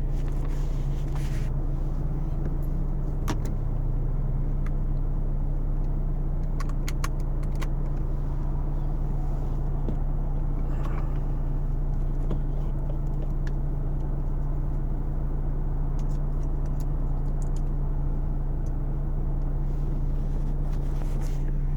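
Steady low hum with a few light clicks and taps scattered through it.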